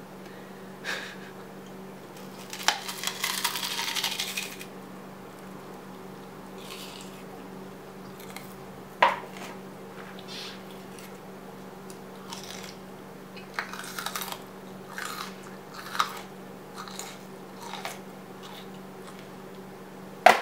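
Person chewing mouthfuls of raw onion: scattered short crunches and wet clicks, with a louder noisy stretch of about two seconds a few seconds in.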